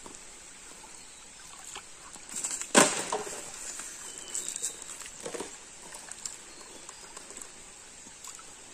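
A single sharp knock about three seconds in.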